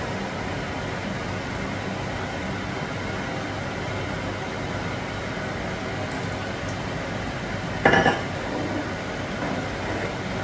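Pork broth simmering in a nonstick pot over a gas burner, a steady hiss. About eight seconds in, a black plastic spoon stirring the soup briefly knocks and scrapes against the pot.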